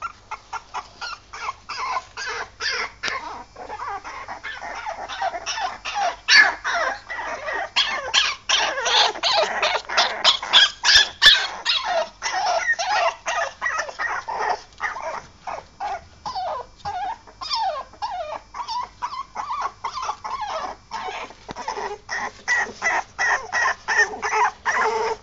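Young blue Staffordshire bull terrier puppies whimpering and squealing in a rapid string of short high cries, several a second, busiest and loudest in the middle.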